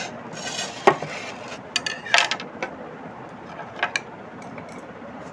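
Potatoes being peeled by hand over a plate: short scrapes of a vegetable peeler and sharp clicks of the peeler and potatoes against the plate, the loudest cluster about two seconds in.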